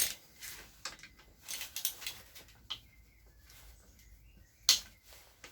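Scattered sharp metallic clicks and clinks of hand tools, a Torx socket and breaker bar, working on the engine's connecting-rod bolts, with one louder click near the end.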